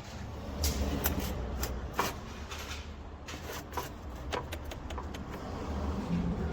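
Low steady rumble with a run of sharp clicks and knocks, the loudest about a second and two seconds in.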